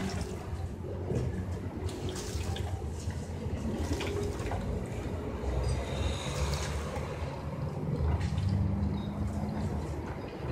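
Bango pigeons bathing in a shallow metal tray, splashing water with their wings in short, irregular bursts. A low steady rumble runs underneath.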